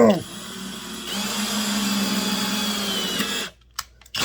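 Electric drill running steadily for about two and a half seconds, drilling an oil hole through a steel chainsaw bar, then stopping. A few light clicks follow near the end.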